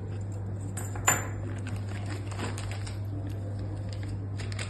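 Small metal door-lock parts, such as brass keys and a lock cylinder, being handled, with a run of light clicks and taps and one sharp metallic clink that rings briefly about a second in. A steady low hum lies under it.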